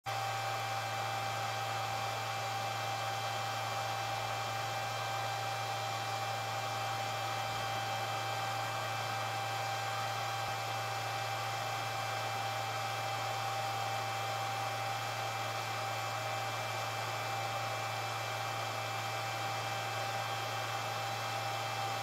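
Homemade 1500-watt induction heater running under load: a steady electrical hum with a thin high whine over an even, fan-like hiss, while the metal rod in its work coil heats to a red glow.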